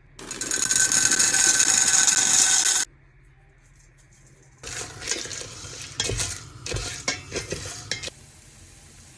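Kitchen sounds of making popcorn in a pot. A loud continuous rushing noise lasts about two and a half seconds. After a pause come a few seconds of irregular clattering and knocks of a pot and utensils.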